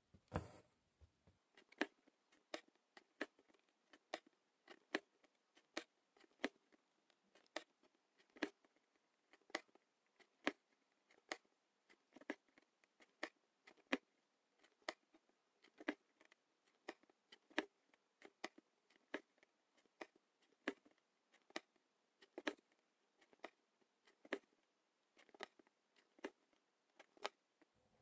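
Embroidery needle punching through fabric and the thread drawn after it, stitch after stitch in long-and-short stitch: faint sharp ticks, a little more than one a second.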